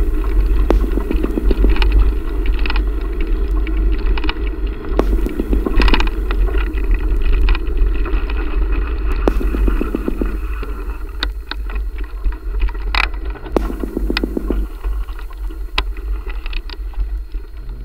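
Bicycle riding over rough winter ground: wind buffeting the microphone as a steady low rumble, with a fine rapid rattle and scattered sharp clicks and knocks from the bike.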